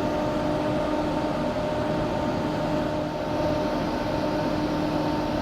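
A train at the station platform, its engine running steadily: a low rumble with a few held hum tones over it.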